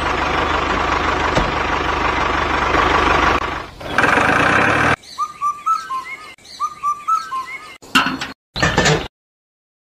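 A tractor engine running steadily, stopping after about three and a half seconds. Then small birds chirping in short repeated phrases, with two brief louder noises near the end.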